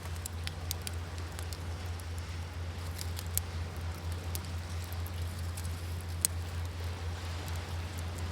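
Wood fire crackling with scattered sharp pops, two of them loud, about a third and three-quarters of the way through, over a steady low rumble.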